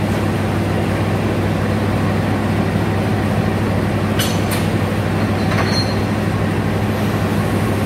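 KAI CC 206 diesel-electric locomotive idling with a steady low hum. About four seconds in come two short sharp sounds in quick succession, with a fainter one a little later, as the coupling gear between the locomotive and the coach is handled.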